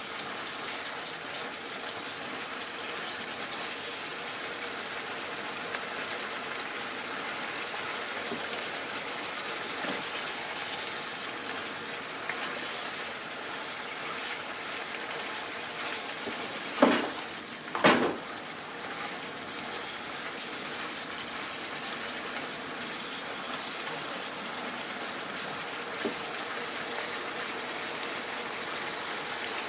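Chicken and bamboo shoots in a tomato sauce sizzling and bubbling steadily in a frying pan while being stirred, with two sharp knocks about a second apart a little past halfway.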